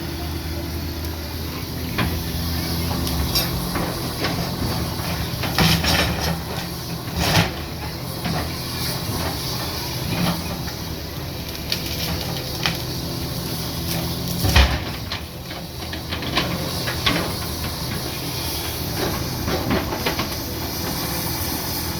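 A Caterpillar heavy machine's engine runs steadily with a hissing noise over it. Sharp cracks break in every few seconds, the loudest about two-thirds of the way through, as tree limbs snap.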